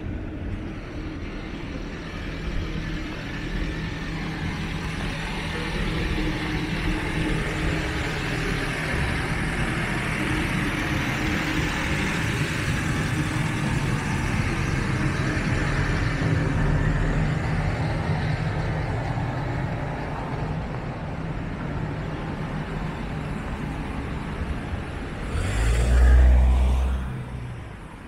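Road traffic: vehicle engines and tyres, a steady wash that slowly builds and eases off, with a short, louder low rumble of a close vehicle near the end.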